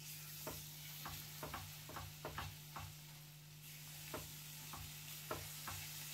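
Ground onion-tomato masala paste frying in hot oil in a nonstick kadhai, with a faint sizzle, while a spatula stirs it and scrapes and taps the pan about twice a second.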